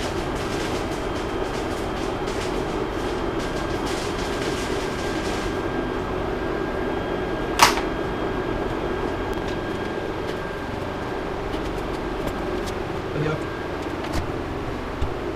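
Welding arc crackling in irregular bursts as engine mounts are tack-welded, stopping about six seconds in, over a steady hum. A single sharp click comes near the middle and a few light knocks near the end.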